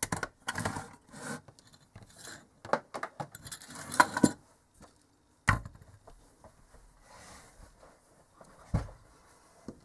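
Handling clatter on a workbench: wires pulled from a terminal block, a plastic case and a metal LED spotlight moved and set down on a rubber mat, with scraping and a run of sharp knocks. The loudest knocks come about four and five and a half seconds in, with a duller thump near the end.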